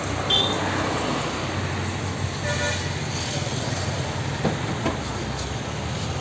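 Steady background road-traffic rumble with a brief horn toot or two.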